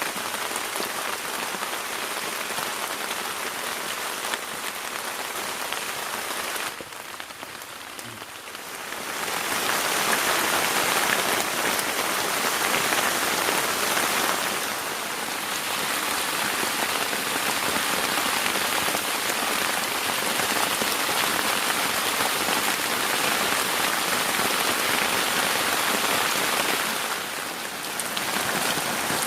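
Heavy rain pouring down steadily. It eases briefly about seven seconds in, then comes back harder.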